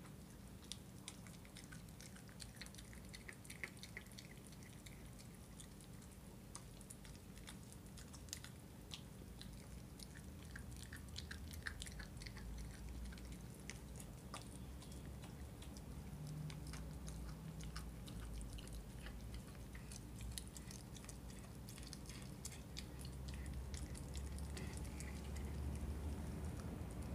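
A miniature schnauzer puppy chewing and gnawing a raw chicken drumstick, with irregular faint crunching clicks from its teeth on meat and bone.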